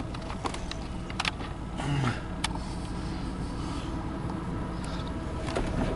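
Steady low engine rumble, with a few scattered sharp clicks and knocks.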